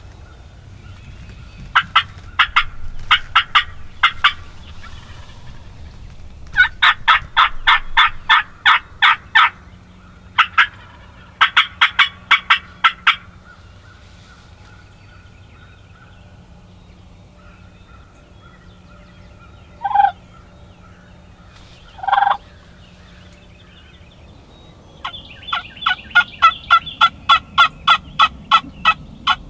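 Wild turkey gobblers gobbling: rapid rattling gobbles in several bursts, with two short single calls in the later part.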